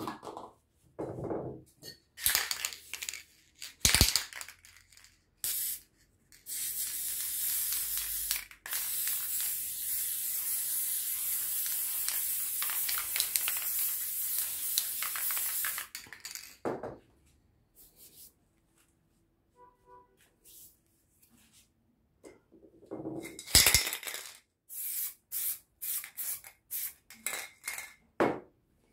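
Aerosol spray paint can hissing in one long spray of about ten seconds, after a short spray just before it. Short clicks and clinks come before and after the spraying.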